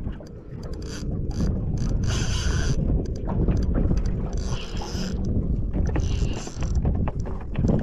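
Wind rumbling on the microphone, with three short hissing bursts about two, four and a half and six seconds in.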